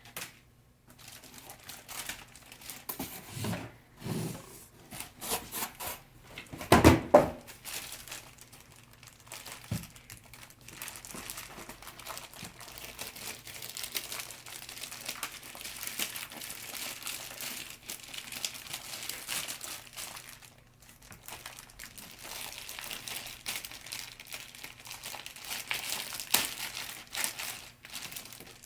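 Laptop packaging crinkling and rustling as it is unwrapped by hand, with some tearing sounds. A single loud thump about seven seconds in.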